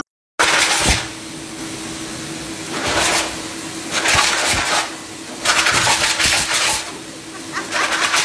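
High-velocity pet grooming dryer blowing air through its hose: a steady rushing hiss over a constant hum, swelling louder in several surges.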